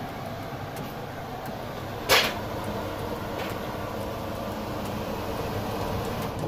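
Zanussi integrated cooker hood's extractor fan running with a steady whir, with one sharp knock about two seconds in.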